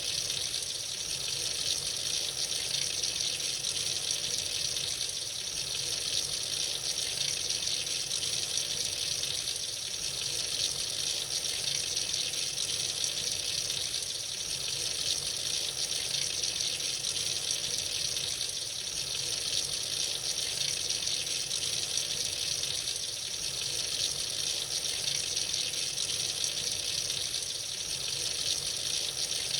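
Tap water running freely into a sink: a steady, unbroken splashing hiss.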